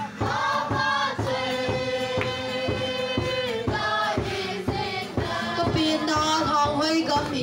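Music: several voices singing a melody with long held notes over a steady drumbeat of about two beats a second.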